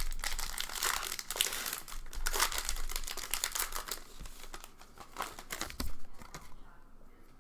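A baseball card pack's wrapper being torn open and crinkled by hand: dense, irregular crackling that thins out in the last second or so.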